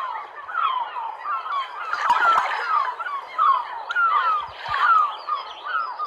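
A flock of water birds calling: many short, falling calls overlapping one another in a continuous chorus.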